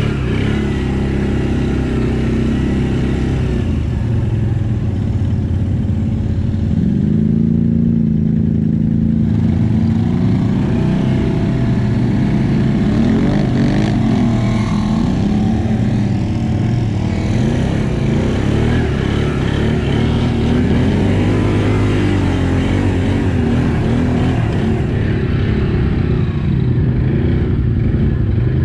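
Off-road vehicle engine running under load, its pitch rising and falling again and again as the throttle is worked.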